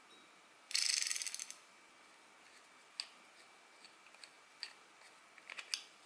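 A Daiwa fishing reel's mechanism being handled: a quick rattle of rapid clicks lasting under a second about a second in, then scattered light clicks and taps of small metal parts.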